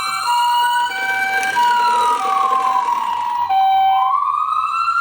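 Toy ambulance minicars' electronic sirens sounding together. A two-tone hi-lo ambulance siren alternates about every half second. Under it, a wailing siren slowly rises, falls and rises again. The two-tone stops about four seconds in, leaving the wail.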